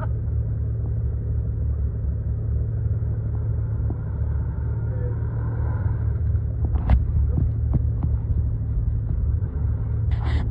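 Segway Villain side-by-side UTV's engine running low and steady as it crawls up a muddy rut. There is a sharp knock about seven seconds in and a short clatter near the end.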